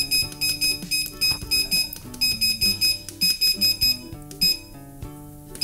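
Electric range's control panel beeping rapidly, about four to five short high beeps a second, as the timer keys are pressed to set 25 minutes; the beeps stop about four seconds in. Background music plays underneath.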